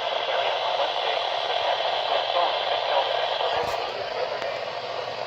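NOAA Weather Radio broadcast from a weather radio receiver's speaker: a voice buried under steady static hiss, with a click about three and a half seconds in.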